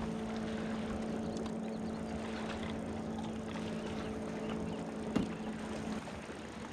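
A small electric motor on a fishing boat humming at one steady pitch, cutting off near the end. A single sharp knock comes about five seconds in.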